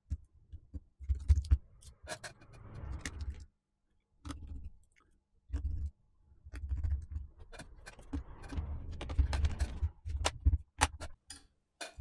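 Hand-handling noise from reassembling a laptop: a Dell laptop battery being set into its bay, with many sharp plastic clicks and taps and low knocks and bumps, broken by a few short silent gaps.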